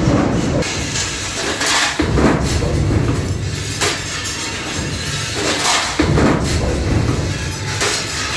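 Servo press running transfer press tooling automatically on sheet-metal parts: a sharp metallic clank roughly every two seconds over a continuous low machine rumble.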